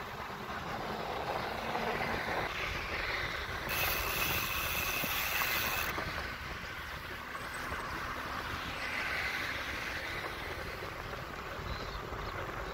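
Wind rushing over the microphone, with rolling noise from a moving bicycle. About four seconds in there is a louder hiss with a faint high whine that lasts about two seconds.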